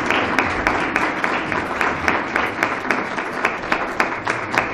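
Applause from a small audience, the separate hand claps easy to pick out, slowly dying away.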